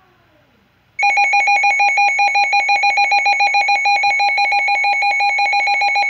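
Midland WR100 weather radio sounding its alert test tone: a loud, fast-pulsing electronic alarm at a fixed pitch, about seven pulses a second, starting about a second in.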